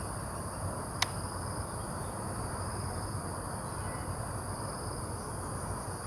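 Steady high-pitched chirring of crickets or other insects over a low outdoor rumble, with a single sharp click about a second in.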